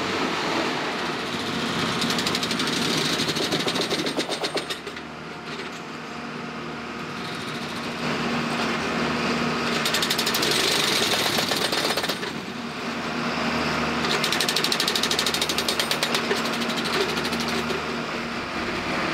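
Hydraulic railroad track maintenance machine working on the track: its engine runs steadily while the workheads hammer rapidly in three bursts of a few seconds each.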